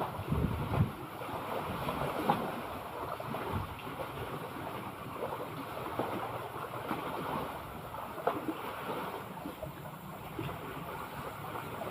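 Sea water lapping and splashing in small irregular slaps, with wind rumbling on the microphone, strongest in the first second.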